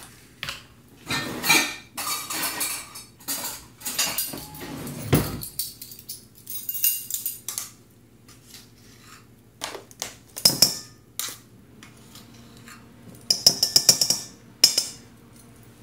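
Ring of metal measuring spoons clinking and rattling as powder is scooped from a can and tipped into a stainless steel mixing bowl, with a quick run of ringing metal taps near the end.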